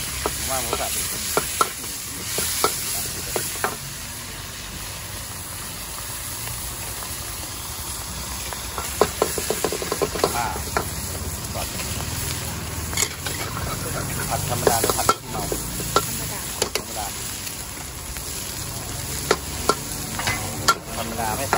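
Minced pork, egg and noodles sizzling in a wok while a long metal spatula stirs and scrapes, clacking against the wok in quick runs of knocks.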